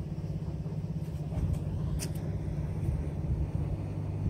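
Steady low mechanical rumble, like a motor running, with a faint click about two seconds in.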